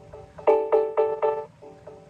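Ring Alarm exit/entry delay countdown tone from an Echo Show speaker, the signal that the alarm is about to arm or sound. Four loud electronic chime notes about a quarter second apart, then a run of softer notes, the pattern repeating every two seconds.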